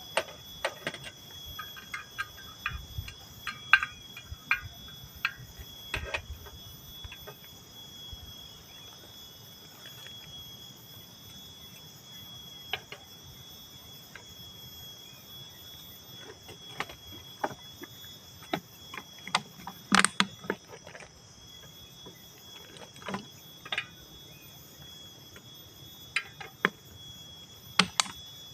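Steady high insect trilling, like crickets, with scattered clicks and knocks from a portable gas stove and frying pan being handled; the sharpest click comes about two-thirds of the way through.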